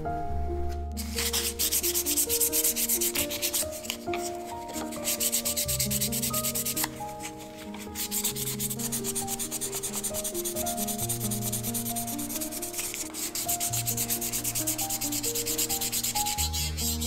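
Hand sanding a curly birch pipe bowl: quick, even rubbing strokes that start about a second in and pause briefly twice, over background music.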